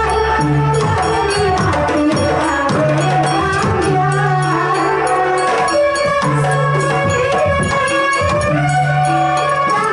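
A live Javanese traditional percussion ensemble plays a dense, driving drum rhythm on large double-headed drums and hand-held frame drums. Held low keyboard notes switch on and off every second or two, and a melody line runs on top.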